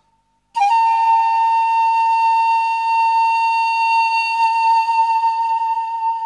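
Background music: a single long held note on a flute-like instrument. It starts suddenly about half a second in and eases slightly toward the end.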